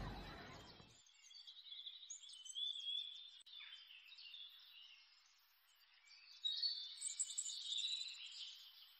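Faint birds chirping and calling in two short spells, one about a second and a half in and one from about six and a half seconds, after background voices fade out in the first second.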